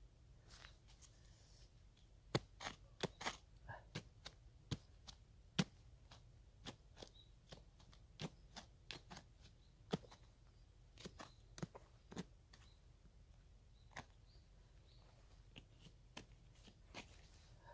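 A small red-bladed hand pick chipping and scraping into the soil around a root, making irregular sharp clicks and knocks. The strikes come thick about two to six seconds in, then thin out.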